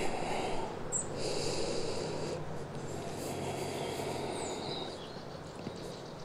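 A person breathing slowly close to the microphone while resting after holding a back-strengthening pose. Each breath is an airy swell that rises and fades over a second or so, over a low steady hiss, with two faint short high chirps.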